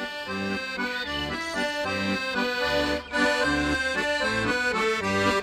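Piano accordion playing a traditional folk tune: a melody in the right-hand keys over rhythmic bass notes and chords, with a brief break about three seconds in.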